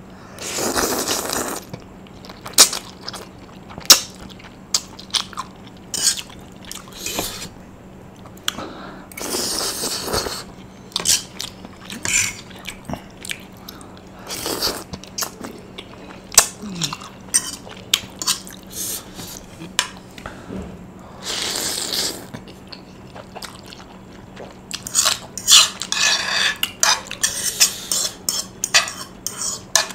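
Close-mic eating of Samyang black bean (jjajang) noodles: utensils clicking and scraping against the bowl, with chewing. Three longer hissing stretches of a second or two break in, and the clicks come thicker near the end.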